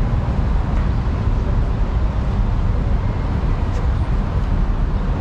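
Steady low rumble of street traffic, continuous and unbroken, with no distinct passing vehicle standing out.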